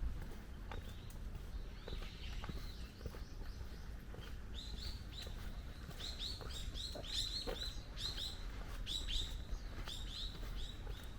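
Small birds chirping: many short, high, repeated chirps, sparse at first and coming thick and fast from about halfway through, over a steady low background hum.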